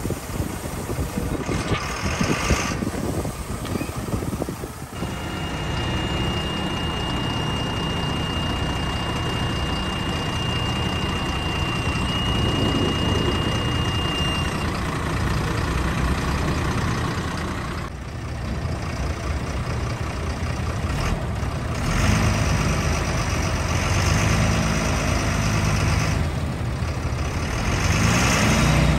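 Diesel engine of an MAN 18-250 tipper truck running, first driving slowly and then running steadily while the hydraulics lower the outrigger leg and tip the body. A steady high whine sounds for about ten seconds partway through.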